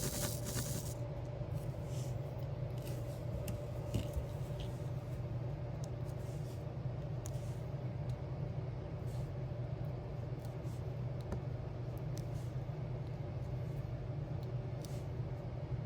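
Small clicks and taps of diamond-painting resin drills being picked up and pressed onto a sticker with an applicator pen, scattered irregularly over a steady low hum. A short rustle of the sheet comes at the very start.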